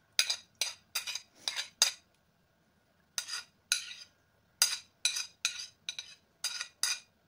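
A metal spoon clinking and scraping against the edge of a ceramic plate as diced potato and onion are pushed off it into a bowl: a series of short, sharp clinks, about two a second, with a pause of about a second partway through.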